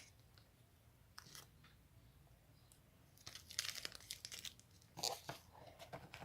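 Toy food and its packaging being handled and fitted into a toy refrigerator: a faint click about a second in, then irregular rustling and crackling from about halfway through.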